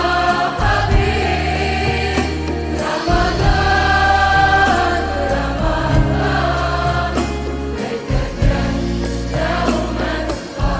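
Islamic pop song (nasheed): a female voice singing held notes over layered, choir-like backing vocals and sustained bass chords that change every few seconds.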